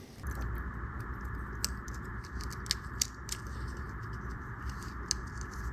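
Scattered light clicks and taps of metal watchmaker's tools on small watch parts during disassembly of a pocket watch movement, a dozen or so irregular ticks over a steady background hiss that starts just after the opening.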